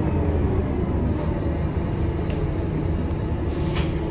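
Scania K230UB bus's rear-mounted five-cylinder diesel engine running steadily, heard from inside the passenger cabin while the bus is under way. A short hiss comes in near the end.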